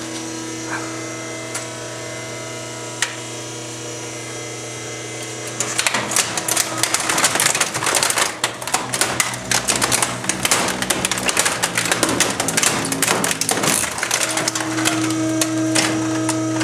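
Trash compactor's motor running with a steady hum. About six seconds in, the old Apple printer's plastic casing starts cracking and crunching under the compactor plate in rapid snaps for about eight seconds. Then the crunching stops and the motor hum grows louder.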